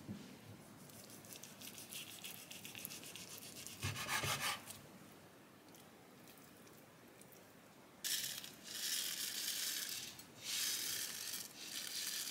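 A kitchen knife sawing through a kimbap roll of nori and rice on a wooden cutting board, in fine, fast strokes. About eight seconds in come three bursts of rustling and rattling as sesame seeds are shaken from a pouch over the sliced pieces.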